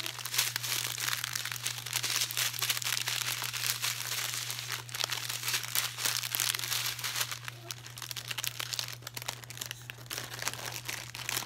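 Plastic packaging crinkling and rustling as a diamond painting kit is handled, in an irregular run of small crackles that eases off in the second half. A steady low hum runs underneath.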